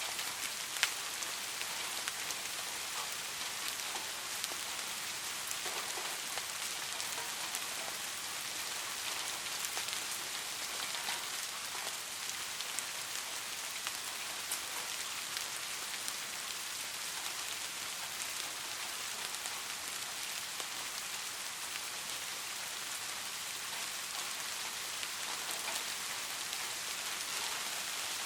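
Steady rain falling, a dense hiss with scattered individual drop ticks, one sharper tick about a second in.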